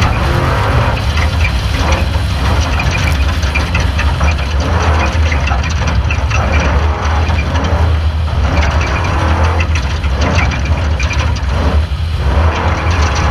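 Off-road race truck driving hard over rough dirt: a loud, steady engine rumble with constant rattling and clatter from the chassis and the rough ground.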